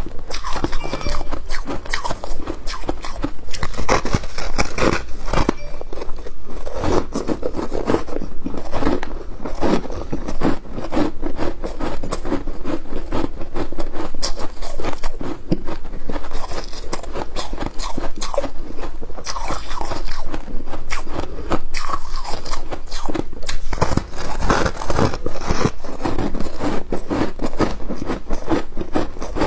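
Close-up crunching of foam ice and flaked ice being bitten and chewed, a dense run of crisp crackles and crunches that keeps going without a break.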